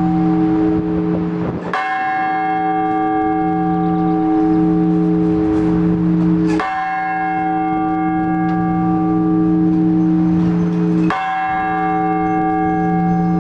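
Large Orthodox church bell struck in single, slow, measured strokes, three times about four and a half seconds apart, each stroke ringing on until the next: the blagovest, the weekday call to service.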